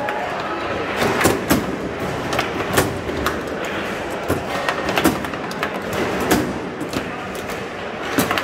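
Foosball table in play: the ball struck by the plastic figures and the rods clacking, a string of sharp knocks and clacks at irregular intervals over the steady background noise of the hall.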